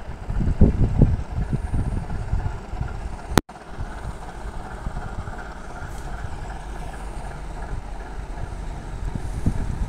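Diesel locomotive engine running as the loco moves along the track, with wind buffeting the microphone in irregular low gusts. The sound drops out for an instant about a third of the way in, then carries on steadier.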